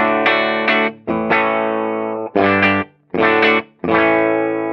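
Electric guitar, a sunburst Les Paul-type, strumming about five chords through a valve amplifier, each ringing briefly before being cut short. The amp's first gain stage has a 0.68 µF cathode bypass capacitor, with fixed-bias output and negative feedback on, which cleans up the low end and pushes the upper mids forward slightly, a Marshall-y sort of sound.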